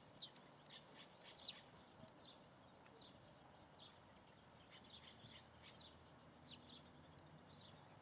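Small birds chirping faintly: short high chirps, a few each second and unevenly spaced, the loudest about one and a half seconds in.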